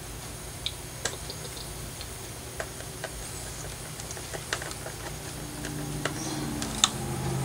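Small screws and a screwdriver clicking and tapping against a plastic radio case and circuit board while the radio is put back together: scattered sharp clicks, the loudest near the end. A low hum comes in during the last two seconds.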